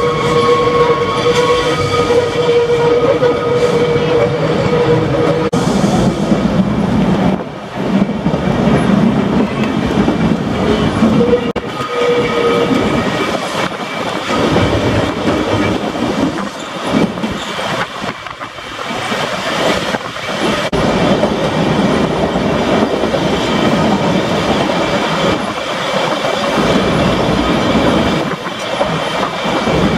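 Manx Electric Railway tramcar running along the line, heard from an open-sided carriage: a continuous rumble and clatter of the wheels on the track. A steady high tone sits over the running noise for the first five seconds or so, then fades.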